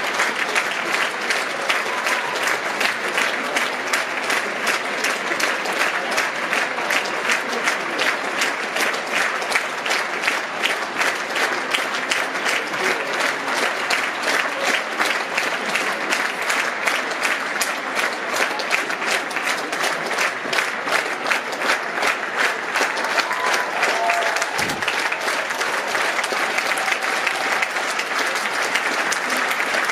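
A large theatre audience applauding, a dense, steady ovation of many hands clapping at a curtain call.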